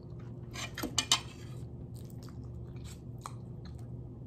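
A person chewing adobo chicken feet with the mouth close to the microphone: wet smacks and clicks, bunched together about a second in, then quieter scattered chewing over a faint steady hum.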